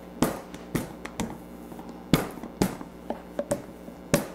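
Rolling pin working stiff, chilled gingerbread dough on a floured stainless-steel counter: an irregular series of sharp clicks and knocks as the pin presses and rolls the crackling dough.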